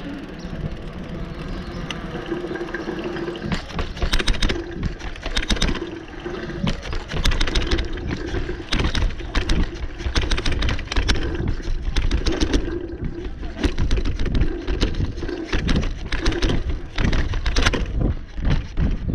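Wind buffeting the microphone and a wheeled ride clattering over stone paving, with a constant low rumble and many sharp knocks and rattles from the bumps that start a few seconds in.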